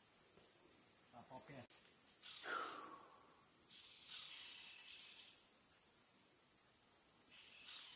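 Steady, high-pitched chirring of insects, with brief faint voices in the first few seconds.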